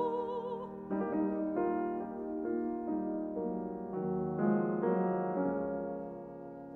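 Piano playing a slow solo passage of notes and chords in a classical art song, after a mezzo-soprano's held note with vibrato ends within the first second.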